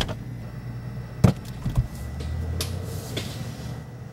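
Refrigerator door being handled: a sharp bang at the start, then more knocks and thumps about a second later and a couple of light clicks, over a low steady hum.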